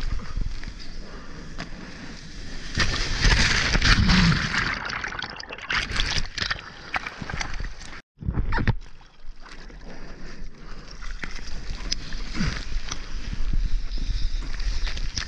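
Seawater splashing and sloshing right at a waterline action camera on a bodyboard, with a louder rush of water a few seconds in. The sound cuts out for a moment about halfway through.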